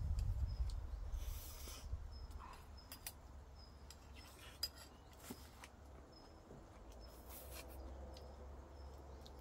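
Scattered light clinks and taps of utensils and dishes at a meal, with a brief hiss about a second in. Faint short high chirps repeat about once a second, and a low rumble fades out over the first two seconds.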